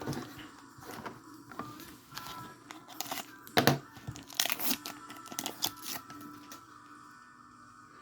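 A foil Pokémon booster pack wrapper being torn open and crinkled, with the cards handled, in a run of sharp crackles; the loudest tear comes about halfway through.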